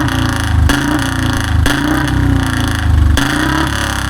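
Royal Enfield Bullet single-cylinder engine revved in about three throttle blips through a long-bottle, wide-mouth silencer, with sharp exhaust cracks (pataka backfire pops) as the throttle snaps shut.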